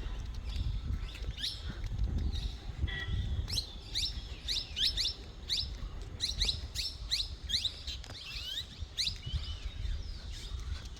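Small birds chirping, a rapid run of short sweeping chirps that thins out near the end, over a low rumble.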